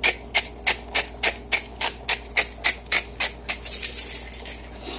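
Hand pepper grinder being twisted over a pot, grinding black peppercorns: a steady run of crisp ratcheting clicks, about three a second, with a short hiss of grinding around four seconds in.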